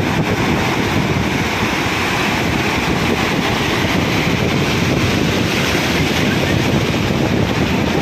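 Sea surf breaking on a beach, a steady rush of waves, with strong wind blowing on the microphone.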